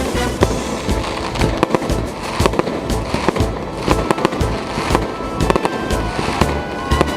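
Fireworks bursting and crackling in rapid, irregular bangs, with music playing underneath.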